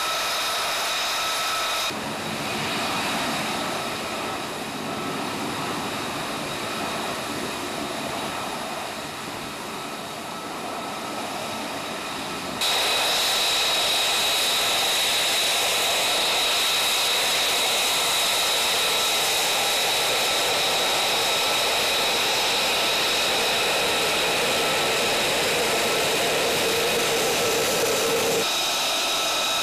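F-35A Lightning II's single Pratt & Whitney F135 turbofan running at low taxi power: a steady jet roar with a high whine over it. It is quieter from about 2 to 13 seconds in, then louder and steady.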